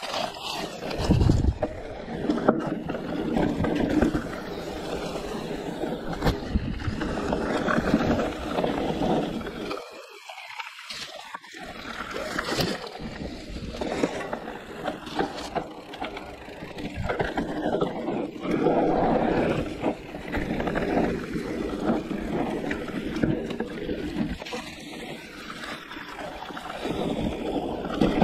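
Riding noise of a Giant Reign E+ electric mountain bike on a trail: a constant rush of tyre and wind noise that rises and falls. Sharp knocks and rattles from the bike come through as it goes over bumps.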